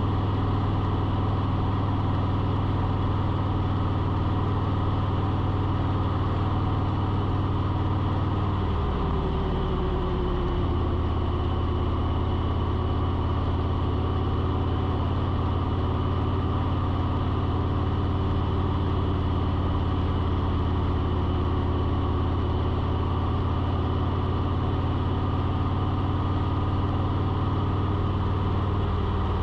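Steady low engine hum that wavers and changes pitch about nine to ten seconds in, then runs steady again.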